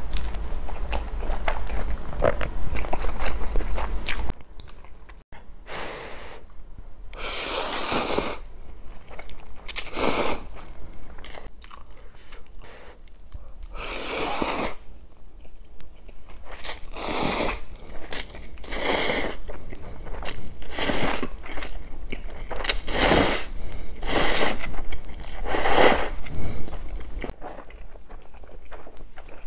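Cup ramen noodles slurped up from chopsticks, a long hissy slurp every second or two, with softer chewing in between. A louder, denser noise fills the first four seconds and cuts off.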